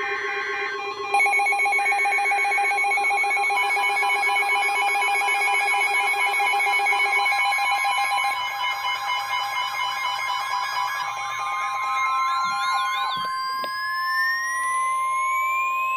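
Emergency Alert System signals. Short screeching data bursts come first. From about a second in, a long steady electronic alert tone sounds together with several other alarm tones, some of them warbling. From about ten seconds in, a rising siren-like whine builds.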